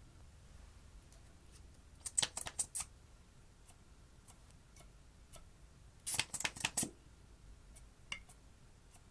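Slime being pressed and worked by hand, giving two short bursts of sharp crackling clicks, each under a second, and one lone click near the end.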